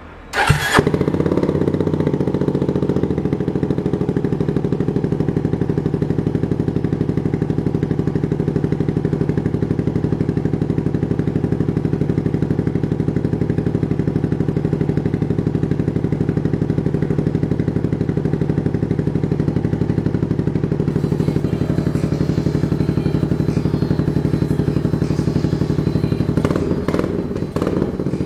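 Yamaha Grand Majesty scooter's single-cylinder four-stroke engine starting up, catching at once about half a second in, then idling steadily. A brief unsteadiness in its sound comes near the end.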